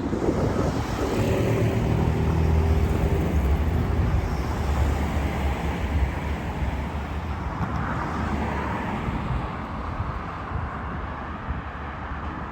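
A road vehicle passing close by, its engine hum loudest a few seconds in, then fading into the general rumble of traffic.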